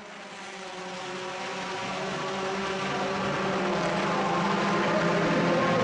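Race car engine running at low revs in the pit lane, a steady hum with an even pitch, growing steadily louder throughout.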